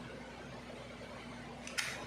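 One short, sharp click near the end, over a faint steady hum.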